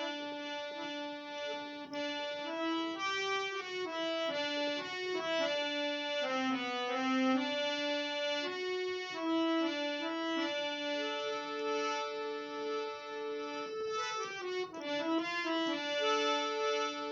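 Reed keyboard instrument playing a slow melody of held notes over a sustained low drone note: the instrumental introduction to a sad Hindi song.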